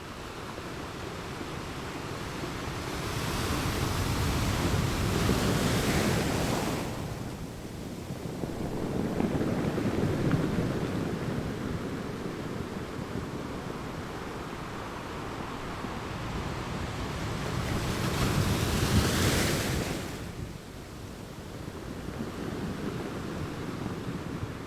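Ocean surf: waves breaking and washing ashore in slow surges. The two loudest waves, about five seconds in and again near nineteen seconds, each end in a hissing wash, with a lower swell between them.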